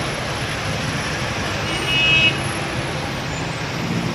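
Steady city street traffic noise, with a short car horn toot lasting about half a second near the middle.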